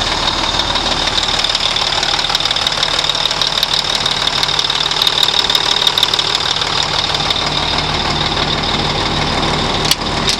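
A 1984 Mack truck's diesel engine idling steadily, with a sharp click just before the end.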